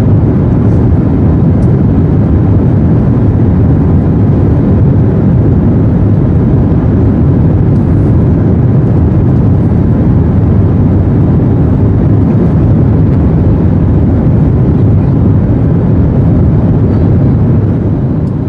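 Steady, loud engine and airflow noise inside an airliner cabin as the jet climbs after take-off, heaviest in the low range. It eases slightly near the end.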